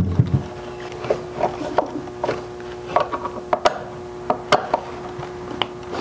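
Scattered light clicks and taps of hands handling the deadbolt's metal mounting plate and wiring, about ten in all, over a faint steady hum.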